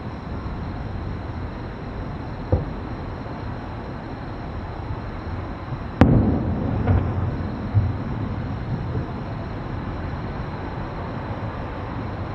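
Distant aerial fireworks: a soft boom about two and a half seconds in, then a sharp loud bang about six seconds in that rolls on as a rumbling echo with a couple of smaller booms, over a steady low background noise.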